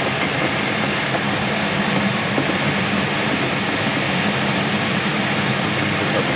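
Steady rush of airflow over a Schempp-Hirth Duo Discus glider's canopy and fuselage, heard from inside the cockpit in gliding flight.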